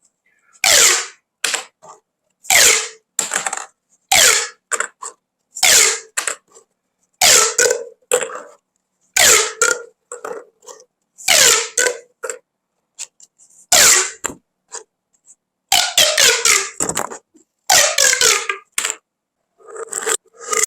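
Plastic pop tubes being stretched and squeezed, each pull giving a short, loud, rasping zipper-like burst, some with a falling pitch, about one every second and a half.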